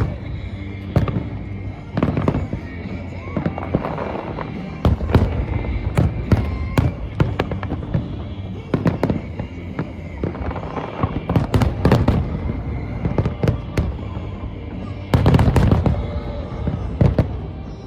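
Aerial fireworks going off in rapid, irregular succession, many sharp bangs one after another, with a louder flurry about three-quarters of the way through. Music plays underneath.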